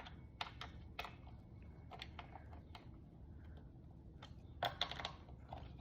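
Scattered light clicks and taps of small parts being handled and fastened onto a motorcycle helmet, with a quick run of clicks near the end.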